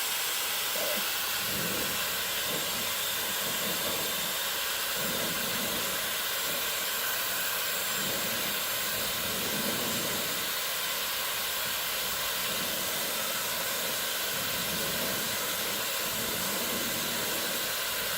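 Dyson Supersonic hair dryer running steadily on its second heat setting: a constant rushing hiss of air with faint steady tones in it.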